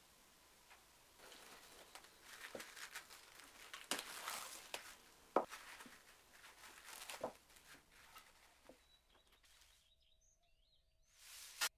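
Plastic cling film crinkling and rustling as hands handle a film-covered paper plate, in irregular bursts that are busiest in the middle and die away, then one short loud rustle that cuts off suddenly near the end.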